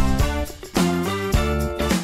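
Upbeat intro jingle music: a run of short held notes stepping from one to the next about every half second.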